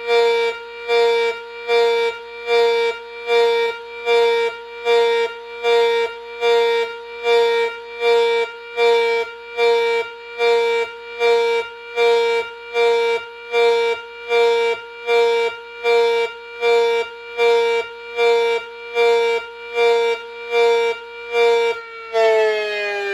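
Mini A.C.A. Cyclone 125 siren, its intake ports mostly taped over, sounding a simulated pulse signal: a steady pitched tone cut in and out evenly, a little more than once a second. Near the end the pulsing stops and the tone slides down in pitch.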